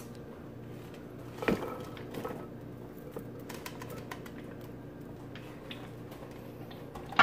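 Diced vegetables sliding off a wooden cutting board into a bowl: a soft knock about a second and a half in, then a few faint taps, over a steady low hum.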